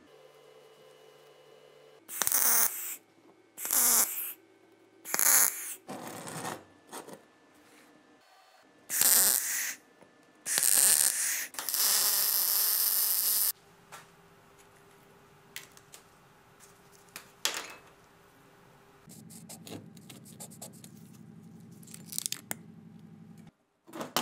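Electric arc welding of a steel tube onto a steel plate: several short bursts of the arc as tack welds, then one longer run of about three seconds near the middle. After that, a few faint clicks and a low steady hum.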